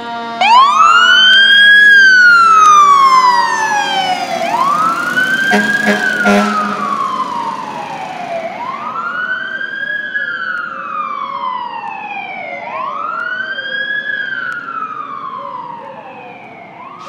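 Fire engine siren sounding a wail that starts abruptly and repeats about every four seconds, each cycle rising quickly and falling slowly. It grows fainter as the engine drives away. A brief cluster of short blasts comes about six seconds in.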